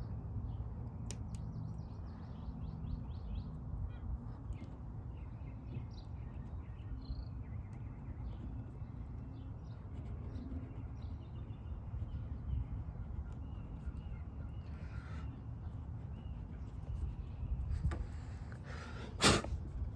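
Birds calling over a steady low outdoor rumble, with faint chirps throughout and one short, loud, harsh call near the end.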